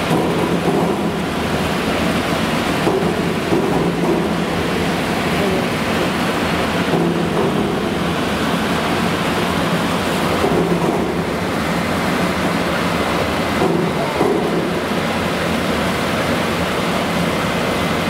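Continuous potato brush washing machine running: a steady rush of water and wet potatoes tumbling against the stainless steel spiral rollers and trough. It swells slightly every few seconds, with a faint motor hum underneath.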